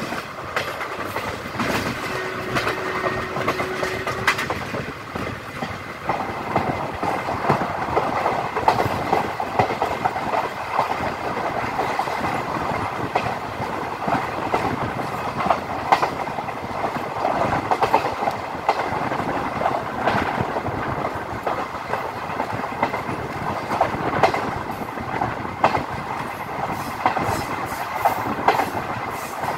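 Passenger train running, heard from a coach window: a steady rumble with the wheels clicking over rail joints. A short steady tone sounds about two seconds in.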